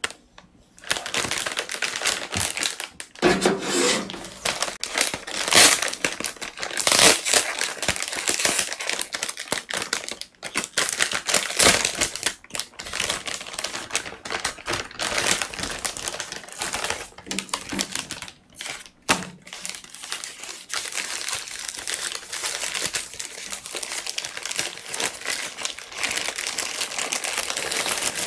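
A kraft paper pastry bag and a white paper wrapper crinkling and rustling as they are handled and opened, with many small irregular crackles.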